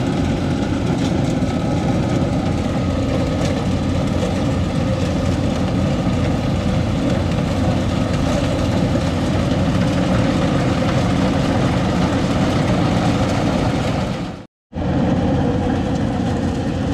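Rice combine harvesters' diesel engines running steadily under load. The sound cuts out completely for a moment about fourteen and a half seconds in.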